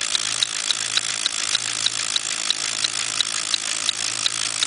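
Electric fan running with a steady hum and rush of air, turning a home-made Lego single-cylinder engine model by a tape belt. The plastic Lego mechanism clicks sharply and evenly, about three times a second.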